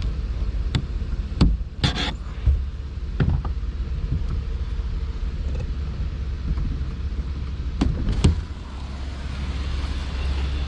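Scattered clicks and knocks of a screwdriver prying at the Ram 1500's sliding rear glass and its track, several in the first few seconds and two more near the end, over a steady low rumble.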